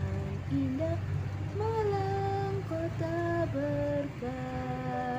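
A woman's voice sings a slow melody about the city of Malang, without clear words, in long held notes. A steady low drone of car engine and road noise runs underneath inside the cabin.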